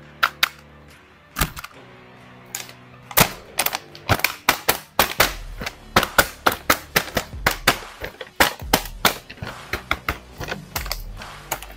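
Stiff plastic blister packaging of an action figure crackling and snapping as it is handled and worked open: a few sharp clicks, then from about three seconds in a dense, irregular run of them.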